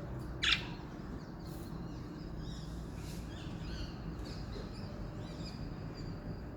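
Pet budgerigars calling: one sharp, loud squawk about half a second in, then soft, high chirping and warbling chatter.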